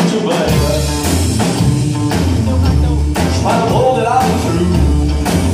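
Live rock band playing, with a man singing lead over electric guitar. A deep bass line comes in about half a second in.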